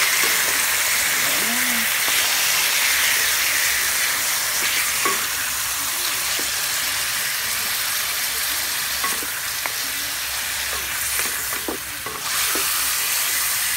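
Chicken gizzards, liver and fat frying with onions in a nonstick pan: a steady sizzle, with scattered light taps of a wooden spatula against the pan as the pieces are stirred.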